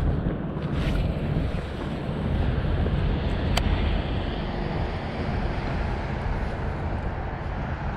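Wind buffeting the microphone, a steady low rumble, with a single sharp click about three and a half seconds in.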